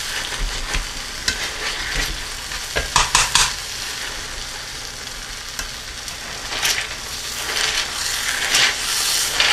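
Pinto beans sizzling in hot butter in a cast-iron skillet while a wire masher squashes them, its head knocking against the pan now and then, with a quick run of three sharper knocks about three seconds in.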